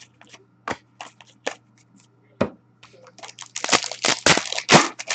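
Trading cards being handled with scattered clicks and taps, then a dense stretch of crinkling from a foil card-pack wrapper from about three and a half seconds in, the loudest part.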